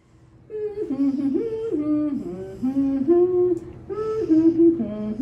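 A voice humming a little tune without words, notes held and stepping up and down, starting about half a second in.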